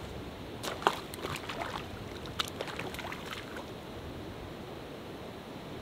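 A hooked trout splashing at the water's surface as it is played in on a fly rod, a run of irregular splashes in the first few seconds, over the steady rush of a mountain creek.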